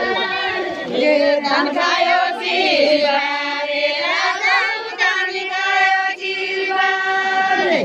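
A group of women singing a traditional Humla dance song together, with long held notes that slide from one pitch to the next.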